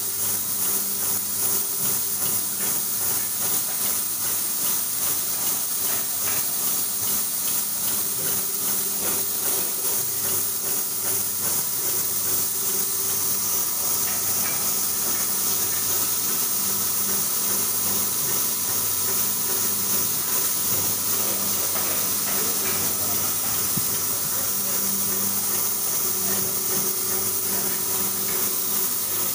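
An automatic aerosol actuator and valve assembly machine running steadily. Its vibratory bowl feeders hum and rattle small plastic parts under a constant high hiss, with fast continuous clicking from the feeding and assembly mechanism.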